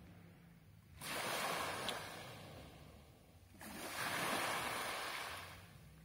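Small Black Sea waves breaking and washing up a pebble beach, twice. Each wash rises suddenly and then fades over a couple of seconds.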